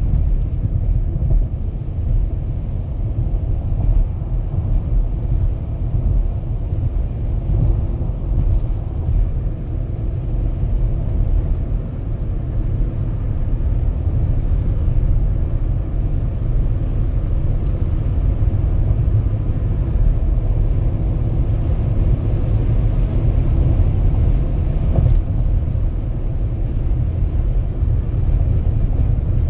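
Steady low rumble of tyre and engine noise heard inside a car's cabin while driving on the highway.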